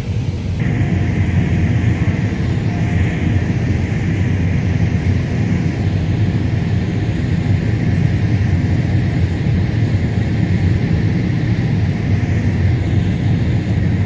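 Combine harvester running while harvesting corn: a steady drone of engine and threshing machinery with a low rumble, stepping up louder about half a second in.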